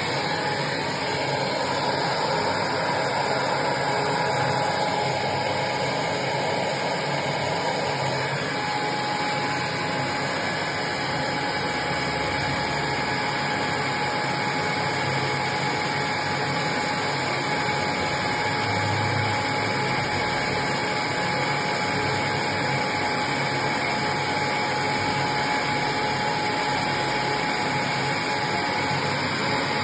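Vacuum cleaner running steadily: a constant rushing motor noise with a thin steady whine over it.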